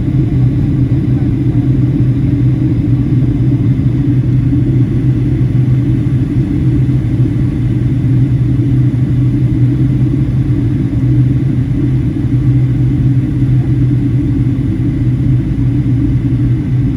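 Steady, loud low drone of a jet airliner's cabin in flight: engine and airflow noise without change.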